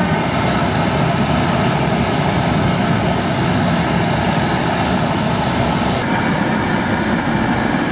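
Steady roar of a high-flame gas burner under a wok. The sound changes abruptly about six seconds in.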